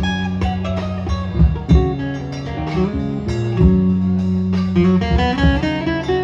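Live amplified guitars playing an instrumental passage: a picked guitar melody over a held bass line.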